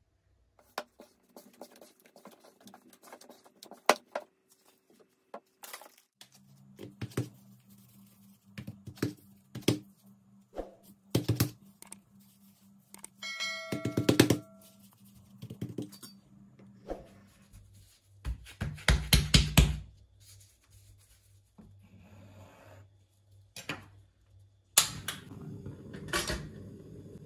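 A scattered string of clicks, knocks and scrapes from cookware and utensils being handled, with a cluster of loud knocks about two-thirds of the way through. A short chime sounds about halfway, and a steady low rush sets in near the end.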